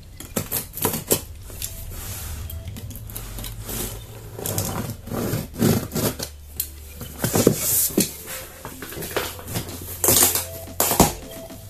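Cardboard TV carton being handled and its sealing tape cut with a box cutter: scattered knocks, scrapes and rasping tears of tape and cardboard, the loudest about seven and ten seconds in, over a steady low hum.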